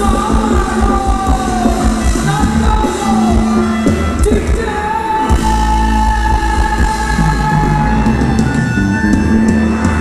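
Live band music with a singer over a steady, heavy beat; the melody holds one long note about halfway through.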